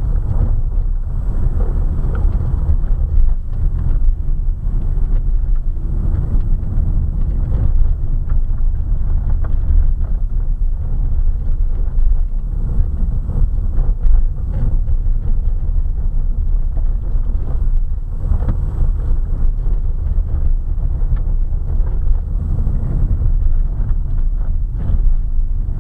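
Car driving down a gravel road, heard from inside the cabin: a steady low rumble from the tyres on gravel and the car itself, with occasional short knocks.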